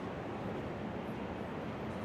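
Steady city background noise, an even hum of distant traffic with no distinct events.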